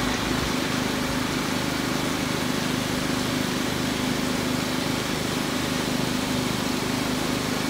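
Artificial rain from a film-set rain machine pouring onto wet pavement: a steady, even hiss, over the constant hum of an engine running.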